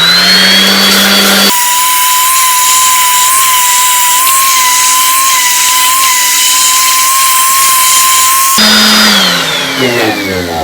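DeWalt electric sander with 220-grit paper running while sanding an outboard propeller. Its sound changes for most of the middle, and near the end its pitch falls steadily as it winds down after being switched off.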